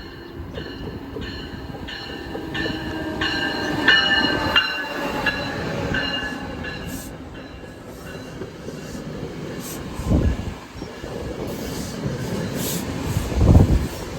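Train moving through the station, its wheels clicking over rail joints in an even rhythm of about two a second, with high wheel squeal through the first half. Heavier low rumbles swell twice near the end.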